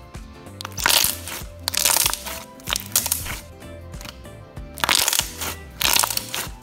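Thick slime crackling and popping as fingers press air bubbles out of it, in about five short bursts, over background music with a steady beat.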